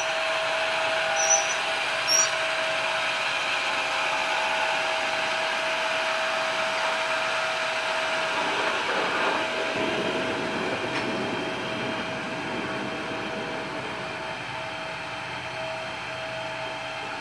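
Mobile band sawmill running with a steady whine, a few short clicks in the first couple of seconds. About nine seconds in, a lower, wavering sound joins it, and the whole grows a little quieter toward the end.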